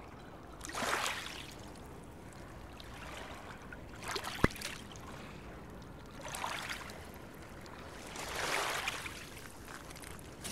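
Water swishing in slow swells, about every two to three seconds, with one sharp click about four and a half seconds in.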